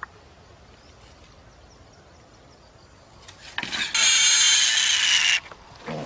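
Wild pig squealing loudly, one long high-pitched squeal of about a second and a half starting a little past the middle, then a shorter squeal at the end.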